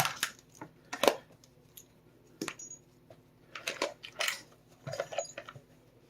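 Small metal tools clinking and clicking on a hard surface as a multi-head screwdriver set is handled: a string of irregular sharp clicks and knocks, with a small cluster a little past the middle.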